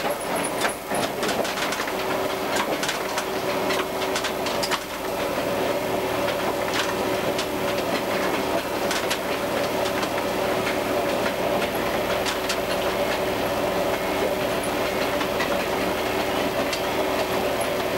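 Diesel railcar running along the line, heard from inside the driver's cab: a steady engine drone with a held whine, and the wheels clicking over rail joints and points, the clicks thickest in the first five seconds.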